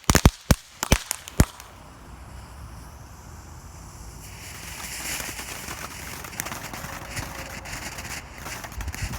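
Reloadable firework fountain crackling, with a run of sharp pops that thin out over the first second and a half. Then a softer hiss with scattered faint crackles as it burns down.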